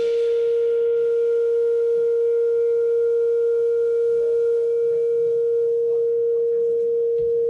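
A single sustained, nearly pure musical tone held at one steady pitch as the final note of the song. Its faint upper overtones fade out a couple of seconds before the end, and the note cuts off near the end.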